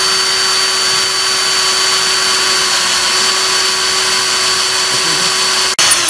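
Bosch cordless drill running at a steady speed, boring a small screw hole through the podium's top. The motor stops for an instant near the end and starts again.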